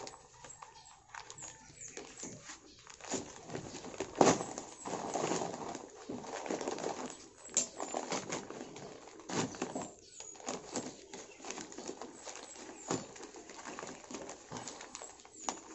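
Plastic sack rustling and crinkling as it is handled and pulled open in a soil planting hole, with scattered knocks and scrapes; the loudest knock comes about four seconds in.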